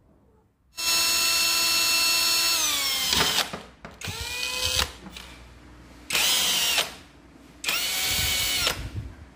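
Cordless drill running in four bursts as it works into the end of a metal bar: one long run whose whine sags in pitch as it slows before stopping, then three short runs of about a second each.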